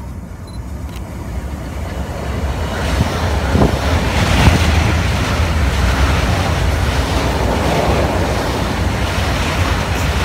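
Electric multiple-unit passenger train approaching and passing close by: a rushing rumble of wheels on rail that grows louder over the first four seconds, with a couple of sharp knocks at its loudest, then holds steady as the cars run past. Wind buffets the microphone underneath.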